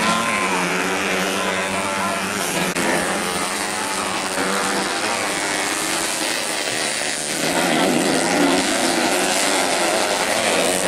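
Several racing motorcycle engines revving and running as the bikes ride a dirt track, their pitch rising and falling with the throttle. The engines get louder and thicker about seven and a half seconds in.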